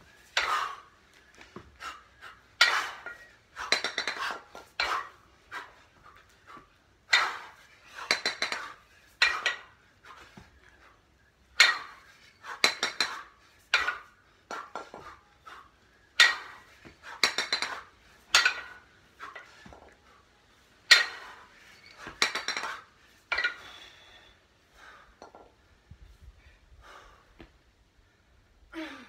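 A pair of 22 kg kettlebells clanking and knocking together through a long-cycle set: clusters of about three sharp metallic clanks, roughly a second apart, repeating every five to six seconds, about 11 reps a minute.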